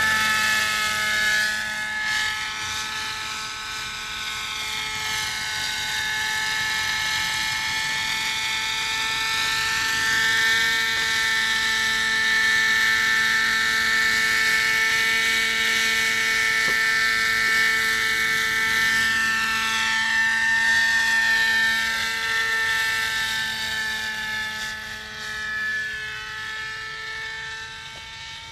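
Radio-controlled coaxial helicopter in flight, its Webra 50 two-stroke glow engine running at a steady high pitch. It grows louder in the middle and fades near the end as the model climbs away.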